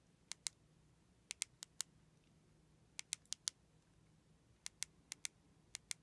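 Rubber keypad buttons of a Baofeng BF-F8HP handheld radio being pressed as the menus are stepped through: sharp clicks in quick clusters of two to four, about fifteen in all.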